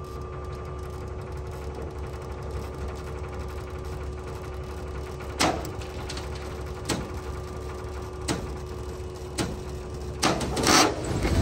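Dump trailer's hydraulic pump whining steadily as the bed tilts under a load of hardwood logs, with four sharp cracks and knocks a second or so apart as the logs shift. Near the end the whine stops and the logs start to slide and clatter.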